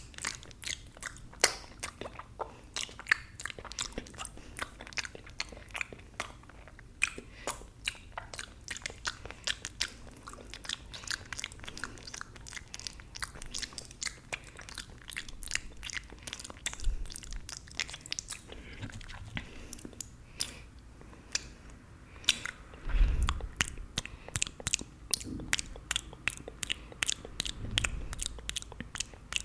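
Close-miked wet mouth sounds of fingers being sucked and licked: a dense, irregular run of smacks, sucks and sharp clicking pops. About two-thirds of the way through there is a low bump.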